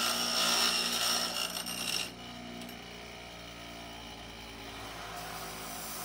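A grinder grinding off the protruding end of a screw on a tool bar, a rough grating over the motor's steady tone. The grinding stops suddenly about two seconds in, leaving the motor humming quietly.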